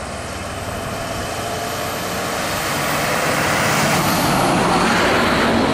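Diesel bus and a small lorry driving past close by: engine and tyre noise growing steadily louder, peaking near the end.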